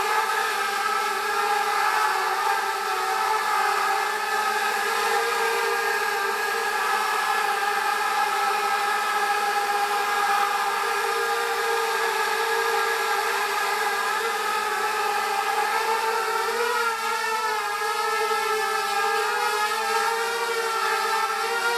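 A mini hexacopter's six inverted motors and propellers whirring steadily as it hovers; about two-thirds of the way through the pitch starts wavering up and down as it climbs and manoeuvres.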